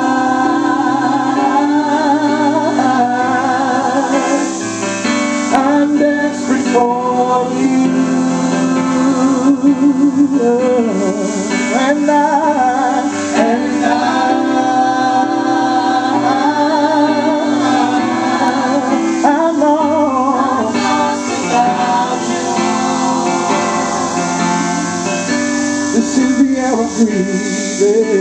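Gospel vocal group of men and women singing a worship song in harmony, with held notes and vibrato, over electric keyboard accompaniment.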